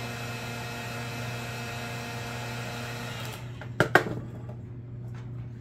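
Handheld electric heat gun running with a steady fan whir and whine, switched off a little over three seconds in. Two sharp knocks follow half a second later as it is set down on the table.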